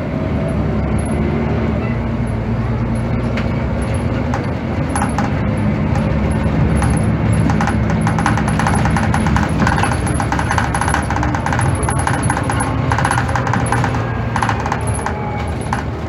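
Heuliez GX217 CNG city bus heard from inside, its gas engine running steadily as the bus drives. Through the middle and later part, loose interior fittings rattle and click over the engine.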